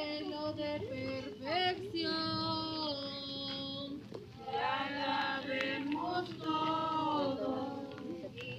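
A group of people singing a religious song as they walk in procession, with long held notes and short breaks between phrases.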